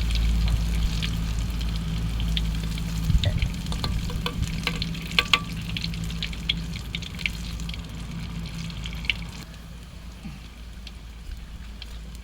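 Batter-coated bananas frying in hot oil: a steady sizzle with many irregular crackling pops, over a steady low hum. The crackling grows sparser and quieter near the end.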